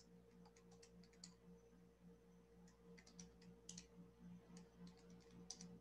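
Near silence with faint, irregular clicks of keys being tapped as a calculation is keyed in, over a faint steady hum.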